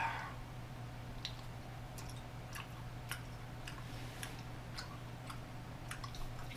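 Faint, irregular mouth clicks of someone chewing a soft sour candy straw, over a low steady hum.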